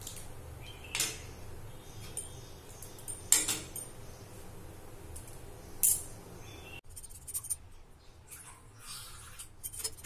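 Stainless-steel ladle clinking and scraping against a metal kadai while stirring sambar, with sharp clinks about a second in, at about three and a half seconds and near six seconds, then lighter taps toward the end.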